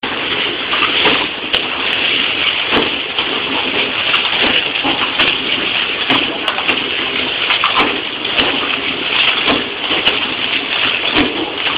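Bread packaging machine running: a steady rushing noise with scattered light clicks and knocks.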